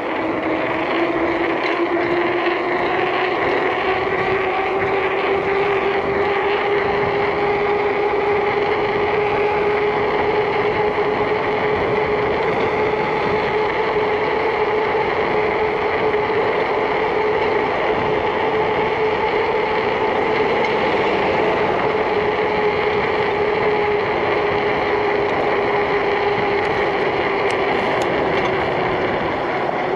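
Mountain bike rolling fast downhill on asphalt: a steady rush of wind on the microphone with the hum of the tyres on the road. The hum rises slowly in pitch as the bike gathers speed, then drops gently in the second half.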